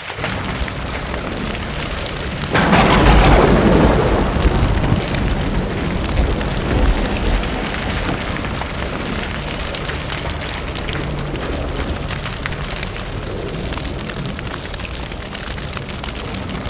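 Sound effect for an animated logo intro: a steady hissing crackle, with one heavy boom and low rumble about two and a half seconds in that fades back into the crackle.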